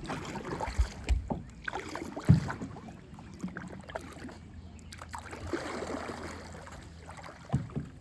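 Kayak paddling: water splashing from the paddle strokes, with a few short dull knocks, the loudest about two seconds in.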